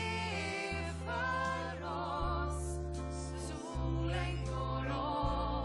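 A woman singing a slow, tender song with held notes and vibrato, accompanied by piano and sustained bass notes that change about every second and a half.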